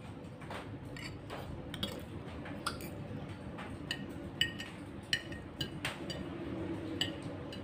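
Metal fork and spoon clinking and scraping against plates while eating, about fifteen light clinks at irregular intervals.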